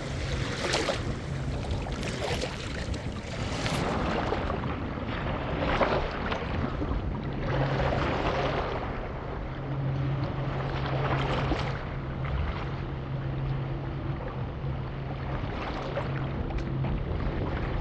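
Water rushing and splashing with wind noise, rising and falling in swells every few seconds, over a steady low hum.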